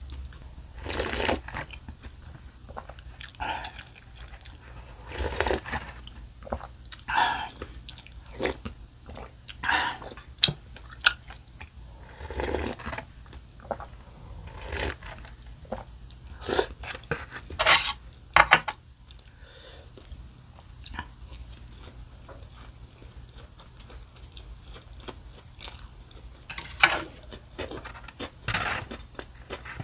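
A person chewing and biting mouthfuls of cheese-filled fried tofu rice balls, in irregular wet bursts with a few sharp clicks, and drinking from a cup noodle bowl partway through.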